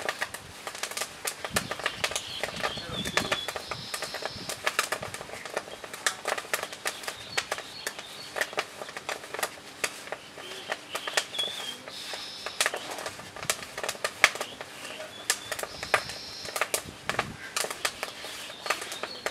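Irregular sharp clicks and crackles throughout, with a bird calling briefly several times.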